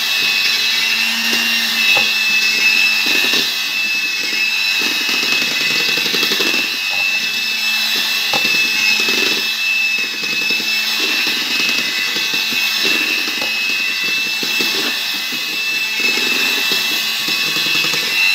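Electric hand mixer running steadily with a high whine as its wire beaters whisk batter in a stainless steel bowl, with scraping and a few light knocks where the beaters touch the bowl.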